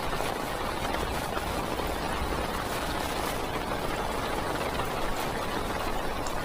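Heavy rain pelting a parked car, heard from inside the cabin: a steady dense patter on the roof and windows, with faint individual drop taps.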